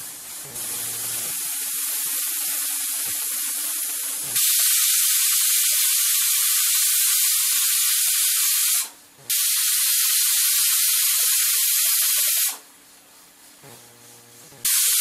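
Stovetop pressure cooker with its whistle weight releasing steam. A hiss builds, then three loud whistles start and stop abruptly: one about four seconds in, lasting several seconds, another a moment after it, and a third near the end. Each whistle is the cooker at full pressure venting, the whistles counted to time the cooking.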